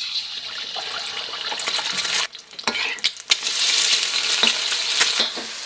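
Food frying in a hot pan, a steady sizzle that breaks off briefly about two seconds in, with a few sharp clicks.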